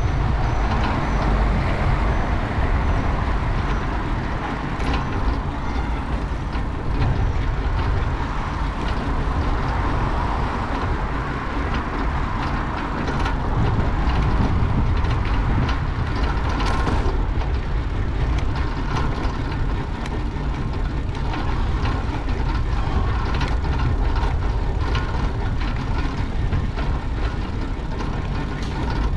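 Steady wind rumble on the microphone of a bicycle-mounted action camera while riding, with rolling noise and scattered clicks and rattles from the bicycle.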